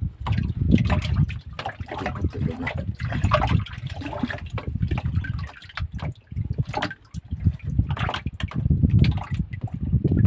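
Water sloshing and splashing in a small boat's flooded fish well as a grouper is unhooked and lifted out of it, with irregular knocks and splashes.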